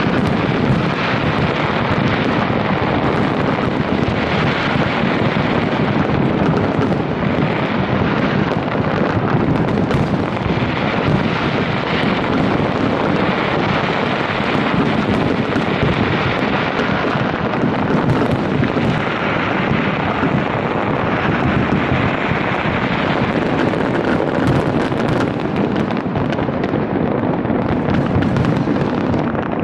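Large fireworks display: a dense, unbroken barrage of bursts and bangs that run together into a continuous din.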